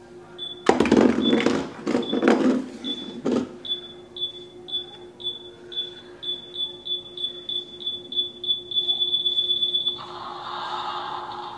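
Small electronic toy robot beeping: short high beeps come faster and faster until they run together into one steady tone, which stops about ten seconds in and gives way to a rough electronic noise. A clatter of noise comes in the first few seconds.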